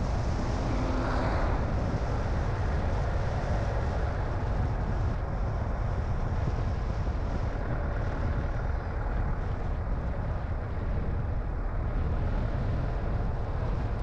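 Car driving on a road: steady low rumble of engine and tyre noise, with a brief swell of hiss about a second in.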